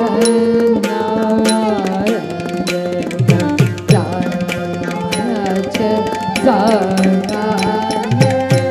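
Carnatic dance accompaniment: hand-drum strokes, several deep ones bending down in pitch, under a held melody line.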